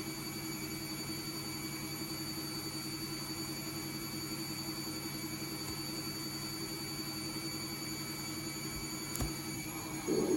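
Washing machine running: a steady hum with several constant tones over an even noise, and a single short click about nine seconds in.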